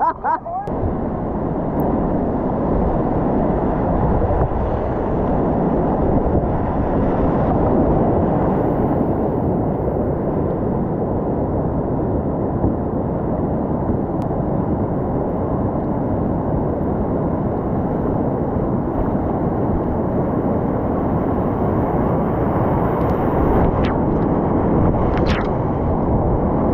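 Steady rush of whitewater rapids, a dull low roar of moving water with no break.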